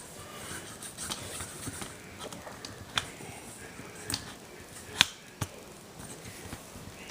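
A plastic DVD case being handled: soft rustling with a few sharp clicks and snaps about three, four and five seconds in, the loudest near five seconds.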